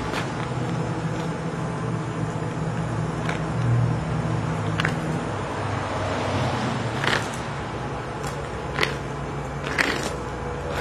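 Steady low hum of a running vehicle engine amid street traffic noise, with a handful of short sharp clicks or knocks, most of them in the second half.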